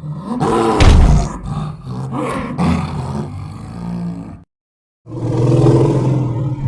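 King Kong giant-ape roar sound effects: a loud roar peaking about a second in and carrying on in shorter roars until about four and a half seconds in, then after a brief silence another roar starts near the end.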